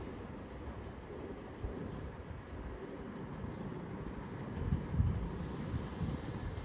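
Low, steady rumble of a train on the line, swelling briefly about two-thirds of the way in.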